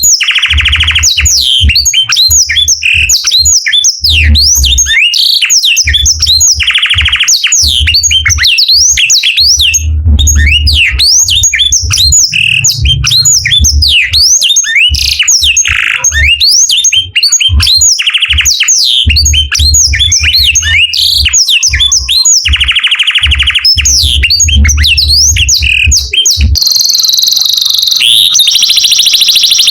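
Canary singing a continuous loud song of rapid rising and falling whistled notes broken by buzzy rolled trills. Near the end the song changes to steadier, very high rolled tours.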